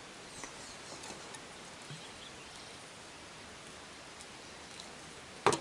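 Steady hiss of light rain, with a few faint high bird chirps in the first second or two and one sharp knock near the end.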